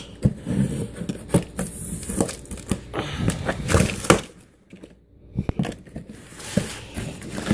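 Cardboard box and packing materials being handled and pulled open: crinkling, tearing and scattered knocks, with a brief lull a little past halfway.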